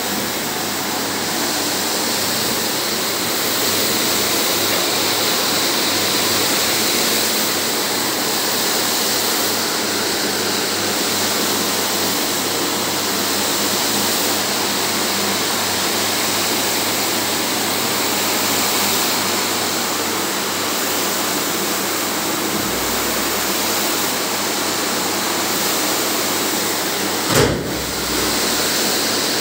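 Automatic carpet-washing machine running: its rotating brushes scrub a wet rug while water pours from a spray pipe, a steady rushing noise. One short knock near the end.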